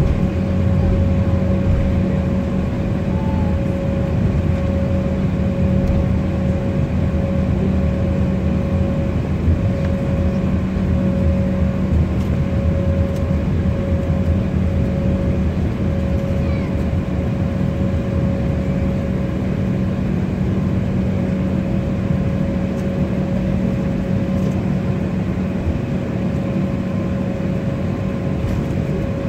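Airliner's turbofan engines running at taxi power, heard from inside the cabin: a steady low rumble with a steady mid-pitched tone over it.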